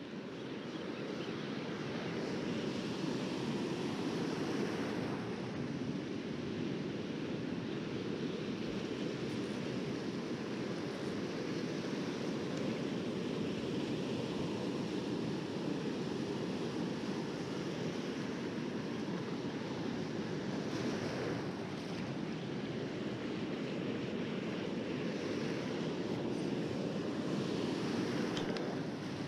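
Ocean surf washing in over the sand, a steady rush of water noise, with wind on the microphone.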